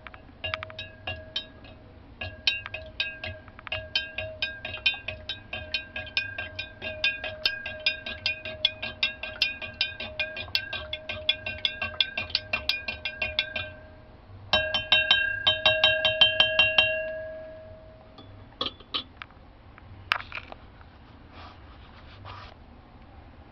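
Plastic spoon clinking rapidly against the side of a glass beaker while stirring a gold solution, the beaker ringing with each tap at about three to four taps a second. The stirring grows louder and faster for a few seconds before stopping, and the ring dies away. This is the stirring-in of the precipitant during a gold drop.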